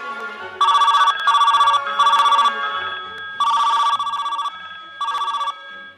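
A telephone bell ringing in rapid fluttering bursts: three quick rings, then a longer ring, then one more.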